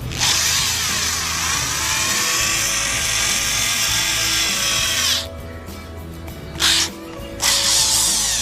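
Foster FSD-010 corded power drill-screwdriver motor whining as it drills, its pitch dipping and recovering as the bit bites. It runs about five seconds and stops, gives a brief burst, then runs again near the end. Background music underneath.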